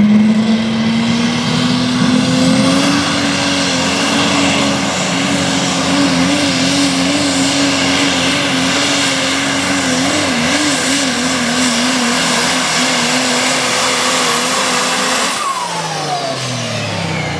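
Diesel Dodge Ram pulling truck at full throttle dragging a weight-transfer sled. The engine revs climb over the first few seconds, then hold high with a wavering pitch and a high whistle above. About fifteen seconds in it lets off and the revs fall away.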